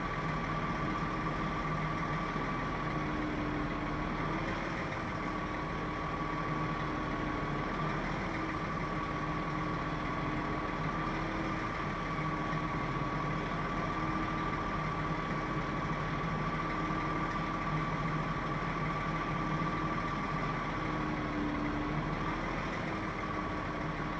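Heavy vehicle engine idling steadily, with a high whine over it that drifts slightly in pitch now and then.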